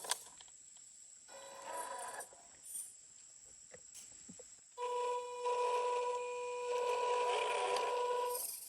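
Small electric RC car's motor and gearbox whining in stop-start bursts as the throttle is applied, the longest and loudest burst starting about halfway through and holding a steady pitch for several seconds, over a faint steady high whine.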